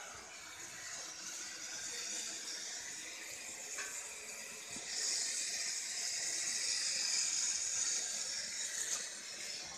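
Milk boiling hard in a steam-jacketed mawa kettle: a steady hiss that grows louder about five seconds in.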